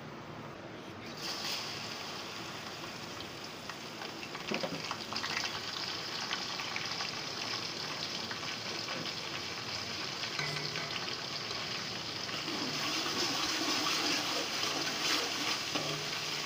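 Sliced onions and ginger-garlic paste sizzling in hot oil in a pot: a steady frying hiss that gets louder about a second in.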